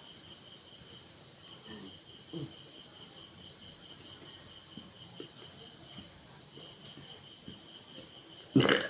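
Crickets chirping steadily in the background, then near the end a woman lets out a sudden loud burp.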